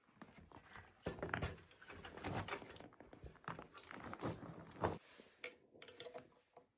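Irregular clinks, knocks and rattles of motorcycle parts and hand tools being handled, busiest in the middle and thinning out near the end.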